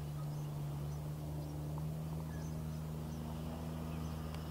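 Steady low hum of a running motor or engine, with a few faint high chirps.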